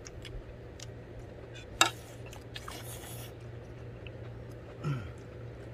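Eating with a metal spoon from a stainless steel bowl: a sharp clink of spoon on bowl about two seconds in, then slurping and chewing, with small clicks and a low steady hum underneath.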